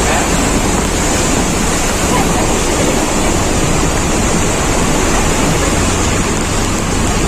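Loud, steady rush of floodwater.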